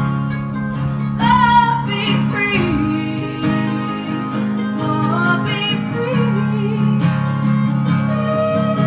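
Live acoustic folk band playing: strummed acoustic guitar with bowed fiddle and picked mandolin, a wavering melody line carried over a steady strummed accompaniment.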